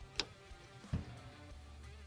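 Background music, with two sharp plucked notes, one near the start and one about a second in.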